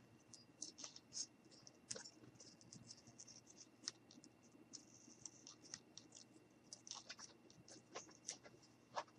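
Faint, irregular snips of a pair of scissors cutting a small circle out of a thin white sheet, with a slightly louder snip near the end.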